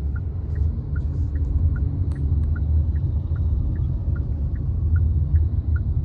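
Inside a 2023 Hyundai Sonata's cabin while driving: steady low road and tyre rumble, with the turn-signal indicator ticking evenly about two and a half times a second, its clicks alternating slightly in pitch.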